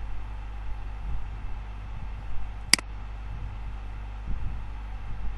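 Steady low electrical hum and hiss of the recording's background noise, broken once by a single sharp computer mouse click a little past the middle.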